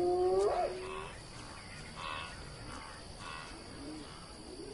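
A spotted hyena giving a whoop call to summon its clan. The call climbs sharply in pitch and ends within the first second. Fainter short calls follow, over a steady thin high tone.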